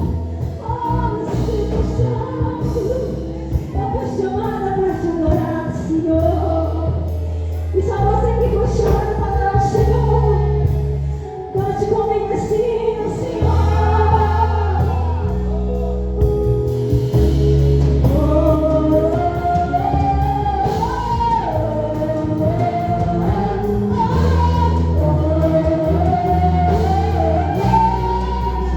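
Live gospel worship song: voices singing a melody over sustained bass and keyboard chords, with a light steady beat.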